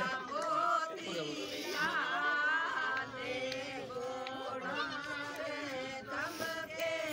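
Several voices chanting and singing at once, overlapping one another, over a steady held note.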